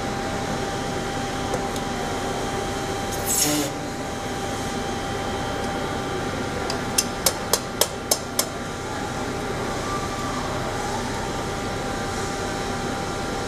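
Steady hum of a gravity die casting machine and shop, with a short hiss about three seconds in and six sharp taps in quick succession between about seven and eight and a half seconds in.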